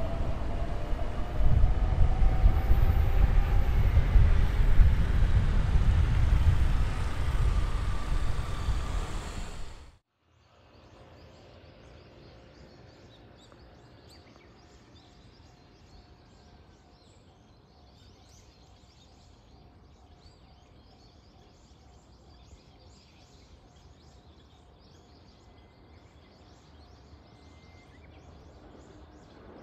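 Electric train running on an elevated track with a deep rumble and a motor whine that climbs in pitch as it gathers speed; the sound cuts off abruptly about ten seconds in. Faint distant town ambience follows, swelling a little near the end.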